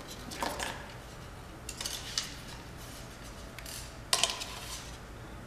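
Arrows clicking and rattling as they are pulled from a traffic cone, and a recurve bow being picked up and handled: a few short bursts of light clatter, the sharpest a little after four seconds.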